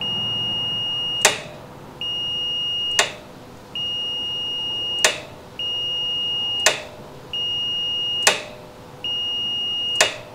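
Digital multimeter's continuity beeper giving six steady high beeps about a second long, each ending in a sharp click, as the new brake light switch is closed and released: the switch is making contact each time it is worked.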